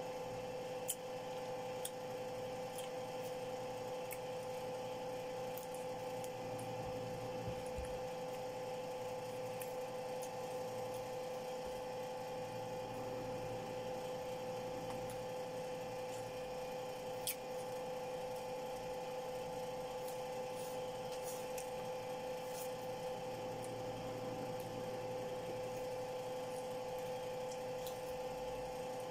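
Steady two-pitched motor-like hum from a small appliance, with faint soft sounds of a pomelo being peeled apart by hand and a few small sharp clicks, one about a second in and one a little past halfway.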